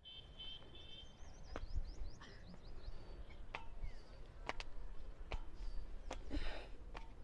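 Small birds chirping, with a quick run of high sweeping notes in the first few seconds. Over a low outdoor rumble come scattered sharp clicks and a short rustle about six seconds in, from the phone being handled as it is carried.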